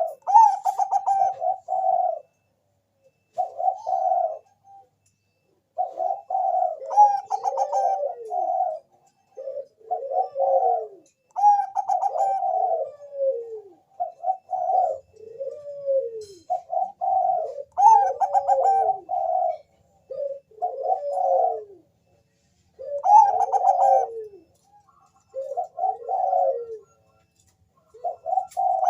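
Zebra dove (perkutut, Bangkok song strain) cooing again and again. Each phrase is a quick run of notes ending in falling coos, with short pauses between phrases.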